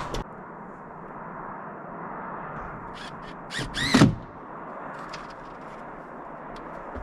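A single short animal call about four seconds in, its pitch rising then falling, with a few light clicks just before it and a steady hiss behind.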